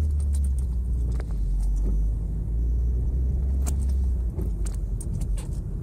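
In-cabin engine and road rumble of a Mazda 626 GF pulling away from a stop, with scattered short clicks and ticks.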